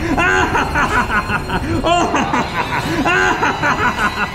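A cartoonish puppet character's voice making a rapid string of wordless vocal sounds, each rising and falling in pitch.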